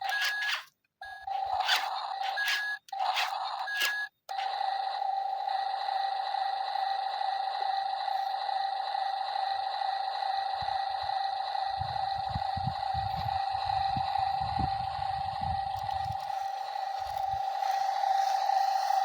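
Small electric motor of an RC toy construction vehicle whining steadily at one pitch, with a few sharp clicks and breaks in the first seconds. A spell of low rumbling thuds comes in the middle, like sand being dug and dumped.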